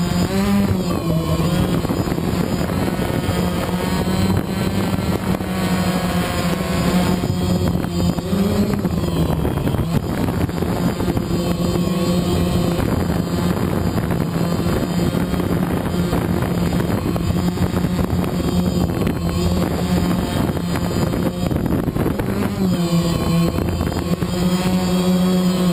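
DJI Phantom quadcopter's motors and propellers buzzing as it hovers, heard up close from a camera mounted on the drone. The steady pitch shifts up briefly a few times.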